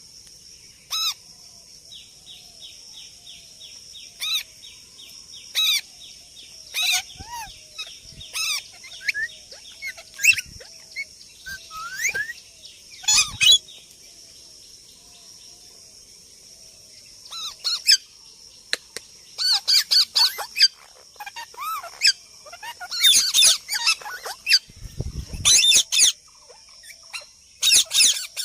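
Parrot calling with sharp squawks and whistled chirps: scattered single calls and a rapid chattering run at first, then dense clusters of squawks through the second half, over a steady high hiss.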